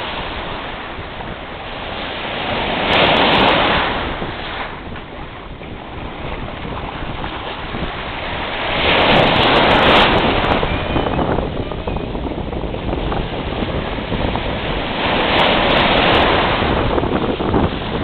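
Small surf breaking and washing up the beach, swelling three times about six seconds apart, with wind buffeting the microphone throughout.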